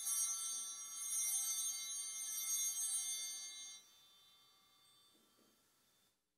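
Altar bells rung at the elevation of the consecrated host during Mass: a cluster of high, steady bell tones that starts suddenly, rings for nearly four seconds, then stops and dies away.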